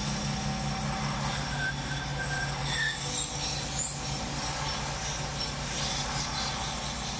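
Wood lathe motor running steadily while sandpaper is held against the spinning maple-and-walnut spindle, giving a steady rubbing hiss over the hum. A few faint high squeaks come in the first few seconds.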